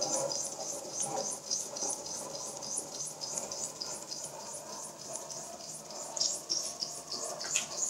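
Two small model steam beam engines running together, their steam exhaust puffing in a quick, even rhythm of short hisses, about three a second.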